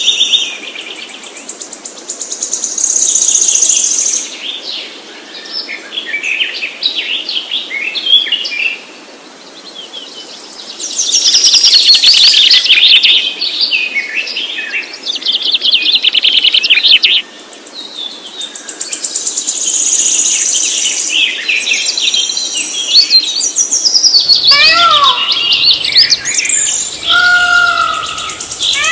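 Several birds singing and chirping over one another, with rapid high trills and chirps throughout. In the last few seconds a lower call with rising and falling swoops joins in.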